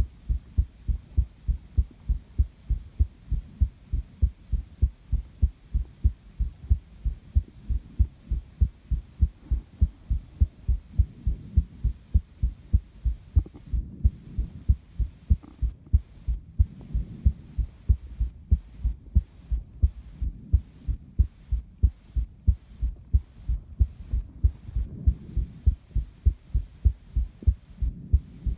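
A person's heartbeat recorded up close: a steady, even rhythm of low thumps.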